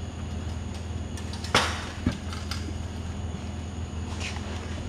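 A sharp knock about one and a half seconds in and a lighter knock half a second later, over a steady low hum.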